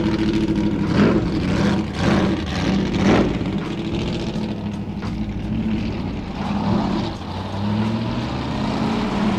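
Nissan Primastar van's engine running as the van drives slowly in and pulls up close by, a steady low drone.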